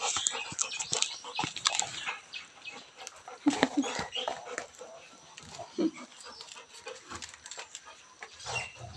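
Two Rottweilers tugging at and chewing a coconut husk: scattered crunching and scraping of teeth on the fibrous husk, with a couple of short low growls a few seconds in.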